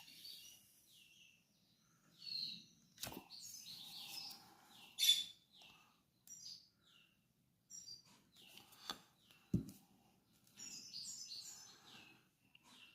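Small finch chirping in short, scattered high calls, with a few sharp knocks in between.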